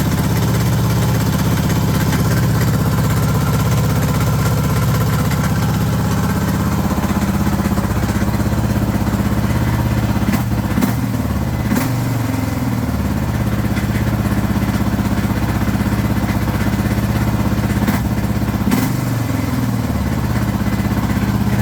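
Suzuki DR650 single-cylinder motorcycle engine idling steadily, with the throttle blipped twice so the revs rise and fall, once about halfway through and again near the end. The owner finds its noise strange and does not know the cause.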